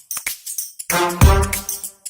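Background music: a few short percussion hits, then a held chord that starts about a second in and lasts about a second.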